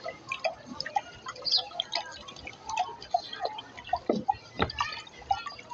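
Water poured from a plastic bottle into a shallow bowl, splashing and dripping in irregular small plops, with two louder plops about four seconds in.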